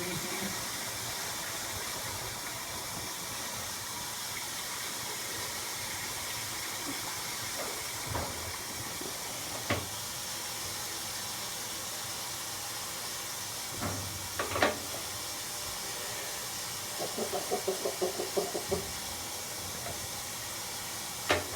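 Kenmore 80 Series top-load washer filling, a steady hiss of water spraying into the tub before agitation starts. A few single knocks and, near the end, a quick run of about a dozen light taps.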